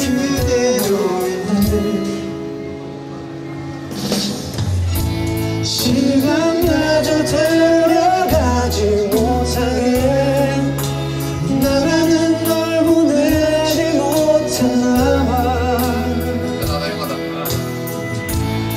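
A man singing a Korean ballad in Korean over a band backing track. The backing thins to a quieter passage in the first few seconds, then bass and drums come back in about four seconds in.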